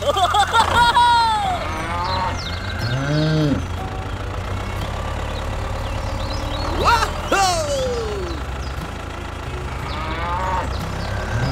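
Cattle mooing several times: short arching calls, one long call near the middle that rises then falls, and another near the end, over a steady low engine-like rumble.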